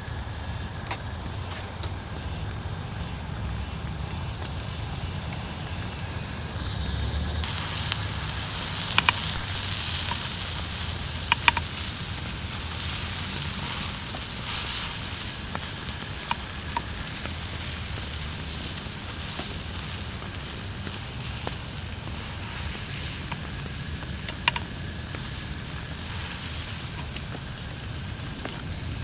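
Steady rain hiss that grows heavier and brighter about seven seconds in, with a few sharp clicks or taps scattered through it.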